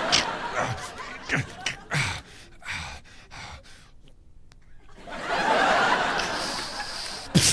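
Studio audience laughing, with short mouth-made sound effects in the first few seconds; the laughter swells about five seconds in.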